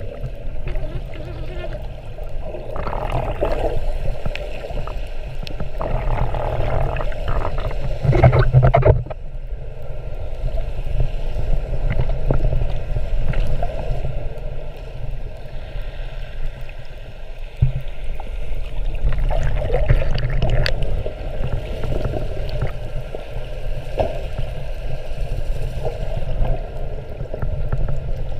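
Muffled water noise heard through an underwater camera just below the surface: a steady low rumble with several louder sloshing bursts, the loudest about eight seconds in.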